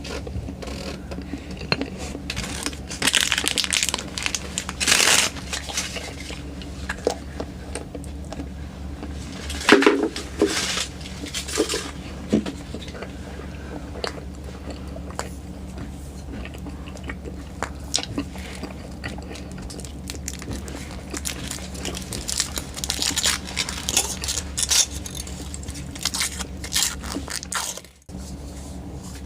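Irregular crinkling, crunching and tearing of wrapping and plastic as a chocolate surprise egg and the toy packet inside it are opened by hand, with louder bursts about three to five seconds in and again around ten seconds.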